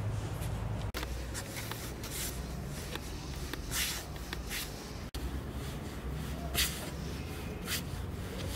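Floured hands kneading and rolling a lump of dough on a wooden board: soft, irregular rubbing and pressing strokes over a low steady hum.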